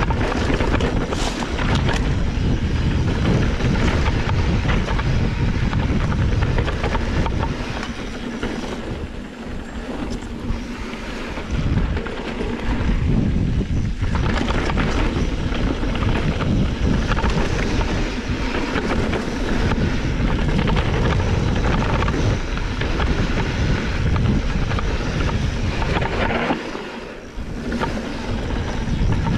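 Wind rushing over the microphone and knobby tyres rolling over a dirt trail as a mountain bike descends. The noise eases briefly twice, about nine seconds in and again near the end.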